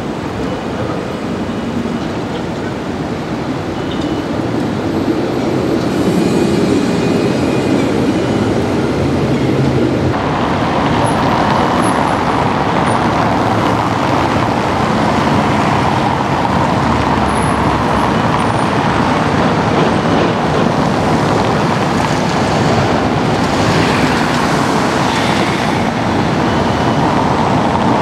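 Helsinki city trams, older high-floor Valmet articulated cars, running on street track amid road traffic: a steady rumble of tram and traffic. The sound changes abruptly about ten seconds in, then holds steady as another tram approaches and passes close near the end.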